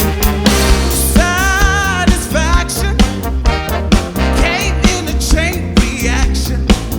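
A disco band playing over a steady beat, with a singer holding long, wavering notes about a second in and again past the middle.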